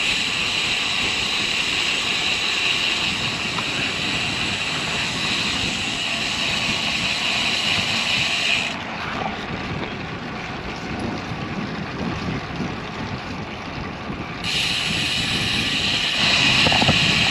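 Steady wind rush and tyre noise from a road bicycle riding at speed. A higher hiss drops away about nine seconds in and comes back about fourteen seconds in.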